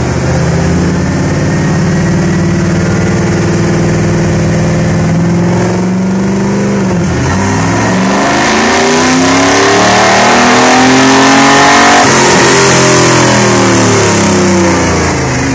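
A 1988 Pontiac Trans Am's L98 5.7-litre V8, breathing through headers and a full aftermarket exhaust, making a dyno pull with the wheels driving the rollers. It runs at steady revs, dips briefly about seven seconds in, then rises in pitch and loudness to a peak about twelve seconds in before the revs fall away.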